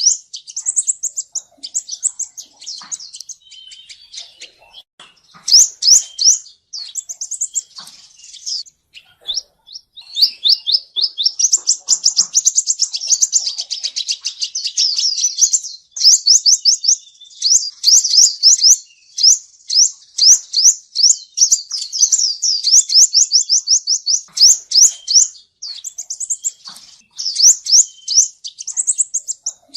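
Male sunbird singing: rapid series of short, high, sweeping notes, in short bursts at first and then a long fast trill.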